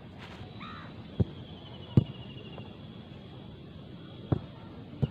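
A football kicked on grass: four dull thuds from the foot striking the ball, the loudest about two seconds in.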